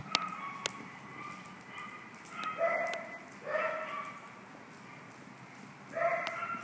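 A dog barking three times: two barks about a second apart, then a third near the end. A few short sharp clicks come near the start.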